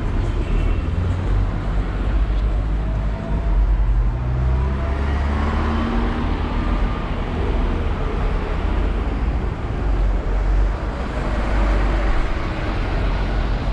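Street traffic passing close by: cars and a minibus running past, with one engine rising in pitch as it accelerates around four to seven seconds in.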